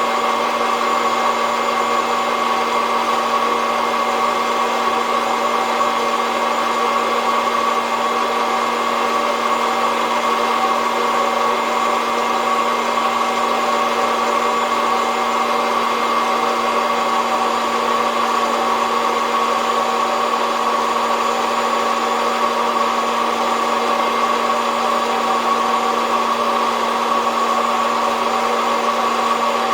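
SOUYI SY-121N hot-air coffee roaster running steadily, its fan blowing heated air through the beans with a constant hum. There are no cracking pops.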